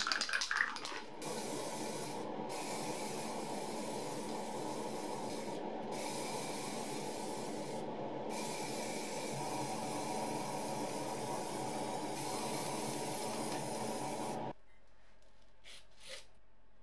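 Aerosol spray-paint can hissing in long bursts with three short breaks, over a steady low hum. It opens with a brief loud rattle. All of it stops suddenly about 14 seconds in.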